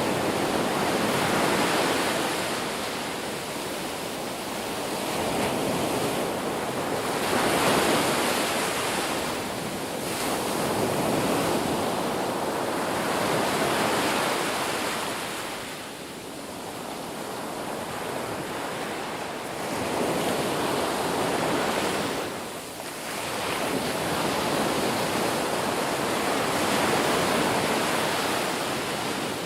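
Ocean surf: waves breaking and washing up the beach, the rush swelling and falling back every four to six seconds.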